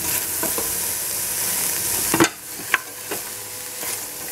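Chopped onion and red capsicum frying with a sizzle in a stainless steel pot while a wooden spatula stirs them, knocking and scraping against the pot. The sizzle is strong at first and drops off sharply a little over two seconds in, just after the loudest knock, leaving the spatula's knocks standing out.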